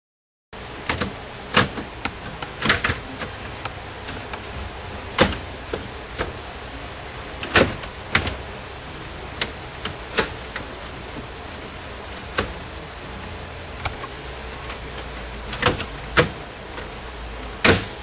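Plastic dashboard trim plate being pressed into the instrument panel pad, giving a dozen or so sharp, irregularly spaced clicks and knocks as its retainers snap into place, over a steady hiss.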